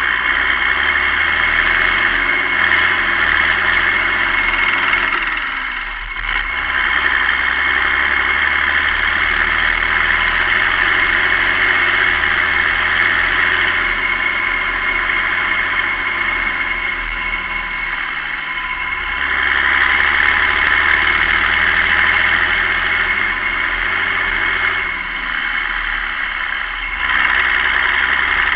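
Massey Ferguson 6290 tractor's six-cylinder diesel engine running steadily while the tractor drives along a farm track. The sound eases and swells again a few times.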